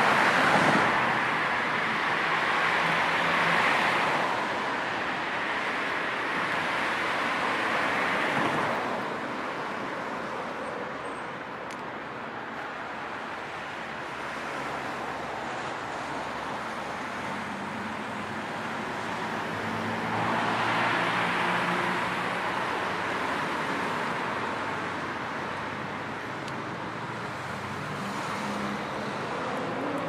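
Street traffic: a steady hiss of tyres and engines, swelling as cars pass about a second in, around eight seconds and around twenty-one seconds, with a low engine hum in the later swell and an engine note rising near the end.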